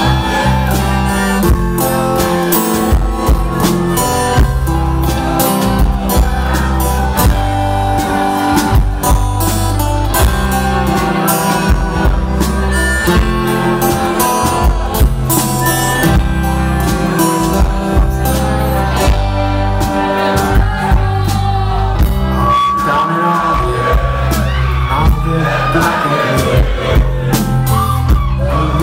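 Live band playing loud: strummed acoustic guitar and electric guitar over a steady drum beat and heavy low end, recorded close to the stage.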